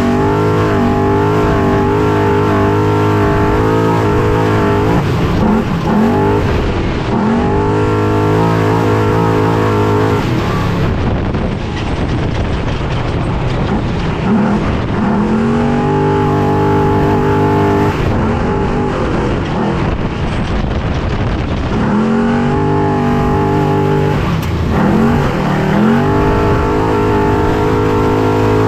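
Trophy truck engine at race speed, heard from inside the truck: it holds high revs, then drops off and climbs again several times as the throttle is lifted and reapplied, with knocks from the truck over rough ground in between.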